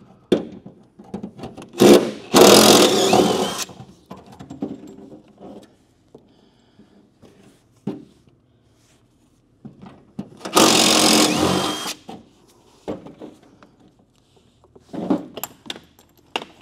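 Mini impact wrench running in two bursts, about two seconds in and again about ten seconds in, backing out the fender bolts. Light clicks and knocks of metal parts between the bursts.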